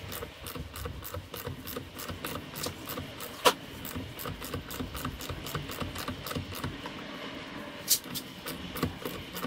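Hand ratchet clicking steadily, about four or five clicks a second, as it turns a thread tap cutting M10 threads into an aluminum hydrofoil fuselage, with two louder clicks about three and a half seconds in and near the end.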